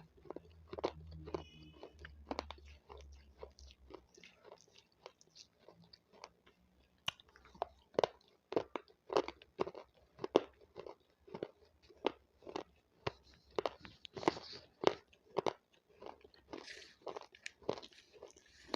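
Close-up crunching and chewing of raw capsicum (bell pepper): crisp, wet crunches repeating about twice a second.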